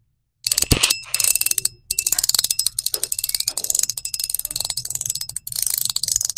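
Ultim mechanical fidget coin being twisted: fast runs of clicking as its spring-loaded balls snap along the center track, with a slight ringing, "a little tingy". The clicking starts about half a second in and pauses briefly twice.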